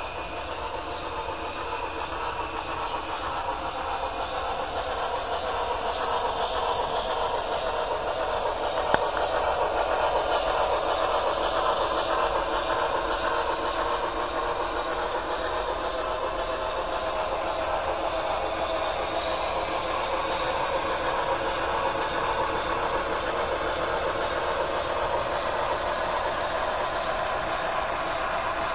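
HO-scale model train running on the layout's track: a steady mechanical running noise with hiss that grows louder over the first ten seconds and then holds. There is a single click about nine seconds in.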